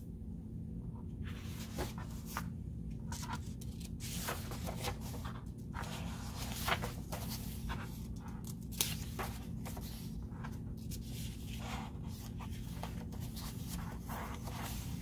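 Paper rustling and a few short knocks as a paperback picture book is opened and its pages are turned by hand, over a steady low hum.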